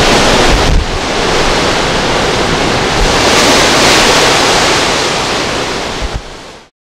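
Hurricane-force wind gusting hard over the microphone and storm waves breaking against the shore, a steady loud rush with low buffeting thumps. It fades out near the end.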